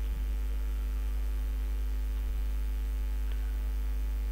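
Steady low electrical mains hum on the recording, with a few faint clicks.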